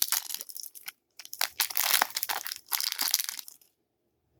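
Trading-card pack wrapper crinkling and tearing as it is handled and opened, in two stretches of rustling that stop about three and a half seconds in.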